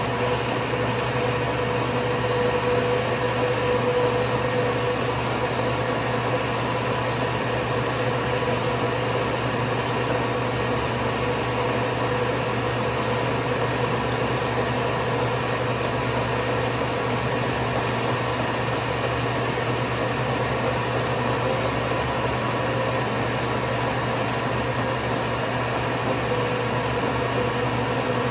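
Turret lathe running steadily: a machine hum with a whine held on one pitch, a little louder for a few seconds near the start.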